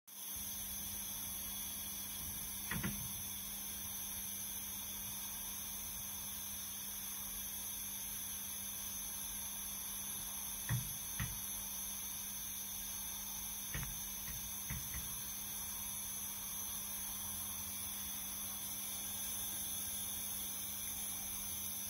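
A steady low hum with a hiss, broken by a few short soft knocks, two of them close together about eleven seconds in.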